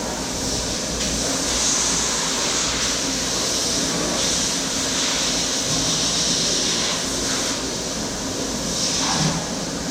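CNC machine running: a steady mechanical hum under a hissing, whirring noise that swells and eases off several times.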